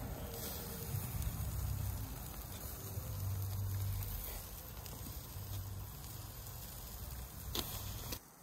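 Chicken pieces sizzling over charcoal on a kettle barbecue grill, under uneven wind rumble on the microphone, with one sharp click near the end.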